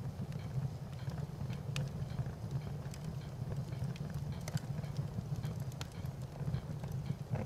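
Fire crackling: a steady low rumble with scattered sharp pops at irregular moments.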